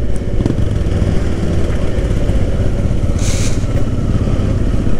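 Benelli 302R motorcycle's parallel-twin engine running steadily at low speed, heard from the rider's own bike, with a brief hiss about three seconds in.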